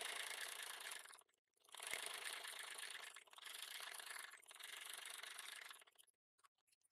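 Sewing machine stitching through layered fabric, faint, in four short runs with brief pauses between them.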